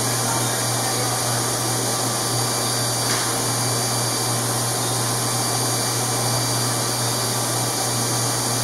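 Surgical equipment motor running with a steady whirring hiss over a low hum, unchanging throughout.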